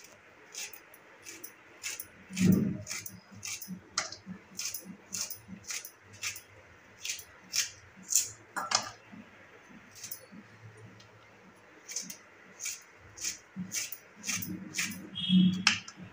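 Okra pods being sliced into rounds on a boti, a curved blade fixed upright on a floor stand: a crisp snick with each cut, about two a second, with a pause near the middle. A louder dull knock comes about two and a half seconds in and another near the end.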